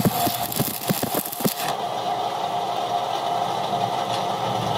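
Arc-welding crackle and sizzle from a stick electrode laying weld on a broken hydraulic jack body. The arc breaks off about a second and a half in, leaving a steady machine hum.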